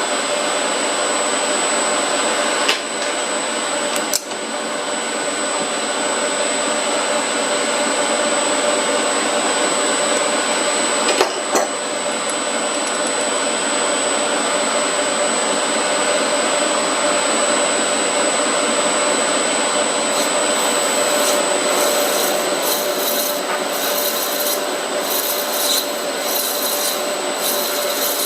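A motor-driven metalworking machine runs steadily, with a continuous rasping as metal is taken off. A few sharp clicks come early on. From about two-thirds of the way through, an uneven, rapid high-pitched crackle joins in.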